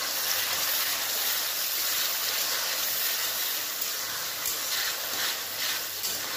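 Onions with garlic, ginger and poppy-seed pastes sizzling steadily in hot oil in a metal kadai while being stirred with a metal spatula that scrapes the pan now and then.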